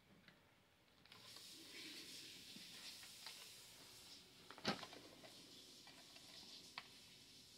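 Near silence with a faint hiss, broken by a light click about halfway through and a fainter one near the end: small plastic toy pieces being handled and set in place.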